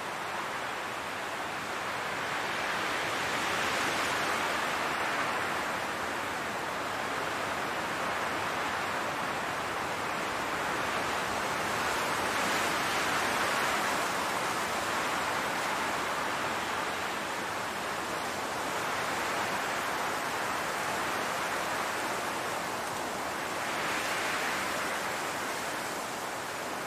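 Wind blowing through a field of grass and flowers: a steady rushing hiss that swells and eases in four slow gusts.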